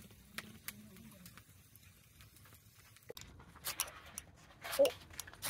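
Wood fire burning under a grill, crackling with sparse faint pops for about three seconds. The sound then changes abruptly to rustling and short scraping noises, the loudest a little before the end.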